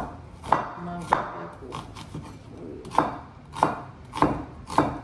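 Cleaver chopping red onion on a wooden cutting board: a steady run of sharp knocks, just under two a second.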